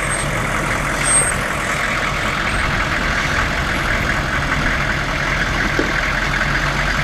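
Hummer H1's engine running steadily as the truck crawls over rock, with no revving.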